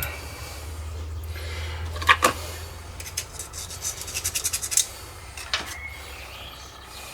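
Metal-on-metal handling while valves are stripped from a cylinder head. There are a couple of sharp clicks about two seconds in, then a quick rattling run of ticks and another click, over a low steady hum that fades out about five seconds in.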